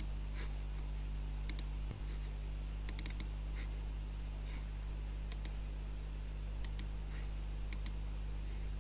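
Computer mouse clicking: several pairs of quick sharp clicks spread out at irregular intervals, over a steady low hum.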